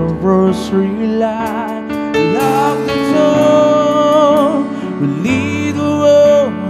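Live band music: a male singer holding and bending long notes over keyboard and electric bass accompaniment.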